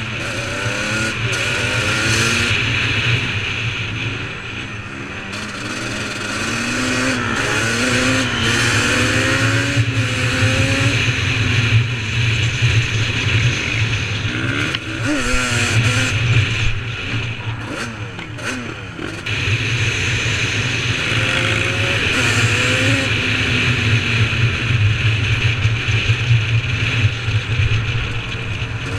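ATV engines revving up and down, their pitch rising and falling again and again over a steady low drone.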